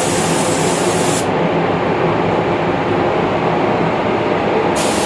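Spray gun hissing as a second coat of clear lacquer is sprayed onto a car, over the steady hum of the paint booth's fans. The high hiss of the gun stops about a second in and starts again near the end.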